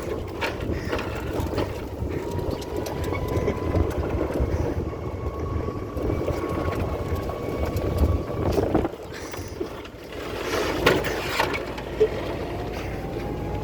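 Golf cart driving along, with wind buffeting the microphone and a thin steady whine. About eleven seconds in there is a short rustling scrape as the cart brushes a tree.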